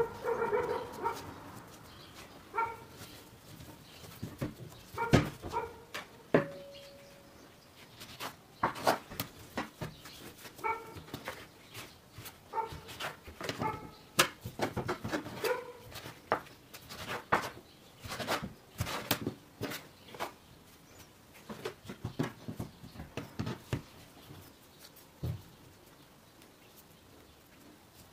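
Dough being divided and handled by hand on a wooden table, with a plastic dough scraper: a string of soft knocks, taps and rubs. Several brief high whines come in between, at the start and a few times in the first half.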